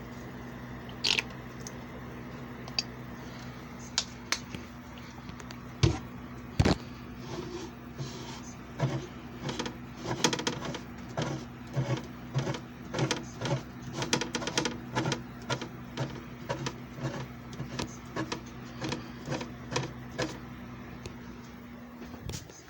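JFJ Easy Pro disc repair machine's electric motor running with a steady hum, with many irregular clicks and taps over it; the hum cuts off near the end as the machine stops.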